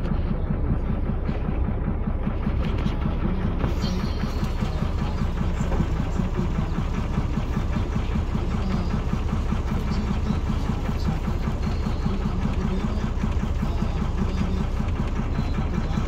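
Steady rumble of a road vehicle's engine and tyres, heard from on board while it drives. A hiss of road or wind noise joins about four seconds in.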